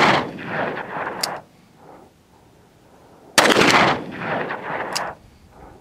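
.44 Magnum revolver, a Taurus Raging Bull with a 6.5-inch barrel, fired twice about three and a half seconds apart. The first shot's report lands right at the start and the second about three and a half seconds in. Each shot is followed by a rolling echo that dies away over about a second and a half.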